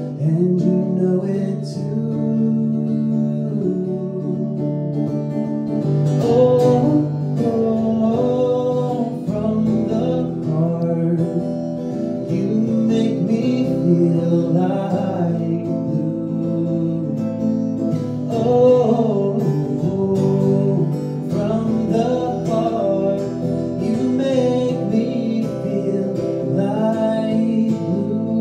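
A man singing to his own strummed acoustic guitar in a live solo performance.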